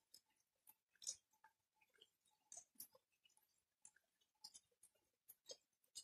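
Light rain: scattered raindrops and drips ticking irregularly, a few a second, with one louder drop about a second in. Faint overall.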